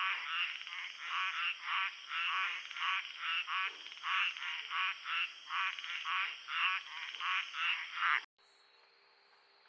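Frogs croaking in a night chorus, a steady run of pulsed calls about two or three a second over a thin, high, steady insect whine. About eight seconds in it cuts off suddenly, leaving only a faint steady insect hum.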